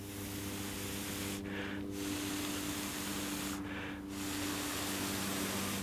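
Breath blown steadily onto a smouldering cramp ball fungus (Daldinia concentrica): three long blows, each broken by a short pause to breathe in. The air keeps the damp fungus tinder glowing in its first stage after lighting.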